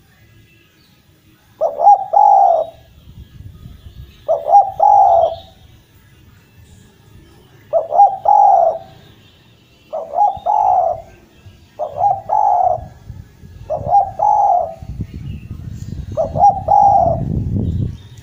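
Spotted dove (derkuku) cooing: seven phrases about two seconds apart, each a quick stutter of short notes running into a longer coo. Faint chirps of small birds sit high above it, and a low rumble rises near the end.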